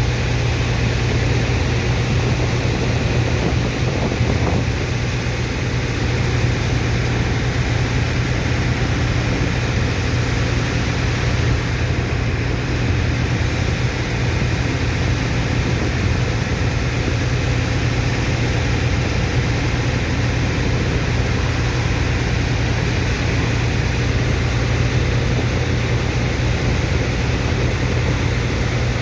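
Diesel engine of a sand-unloading dredger pump running steadily at one constant speed, a low, even drone.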